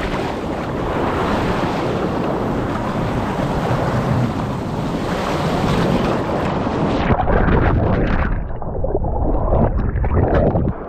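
Sea surf washing over shoreline rocks, with wind on the microphone. About six and a half seconds in, the sound turns muffled and dull.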